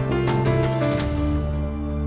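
Closing background music: beats continue to about a second in, then a final held chord rings on as the piece ends.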